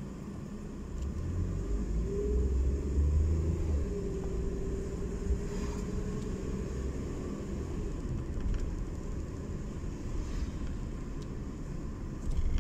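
Car interior while driving: engine and road rumble, swelling as the car pulls away about two seconds in, with a faint engine hum that rises in pitch and then holds steady.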